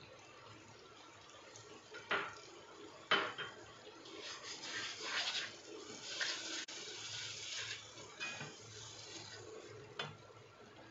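Plastic spatula stirring and scraping ground spice paste frying in oil and butter in a non-stick wok, with a few sharp knocks against the pan about two, three and ten seconds in.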